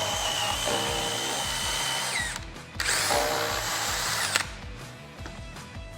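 DeWalt DCD1007 18V brushless drill running at top speed (third gear), boring with a spade bit: a steady high whine that winds down about two seconds in, then a second run of about a second and a half that stops near the end. Background music with a steady beat plays underneath.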